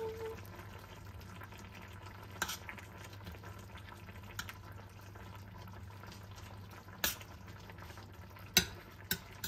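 Coconut-milk curry simmering in a stainless-steel frying pan as a metal spoon stirs it, with several sharp clicks of the spoon against the pan. A steady low hum runs underneath.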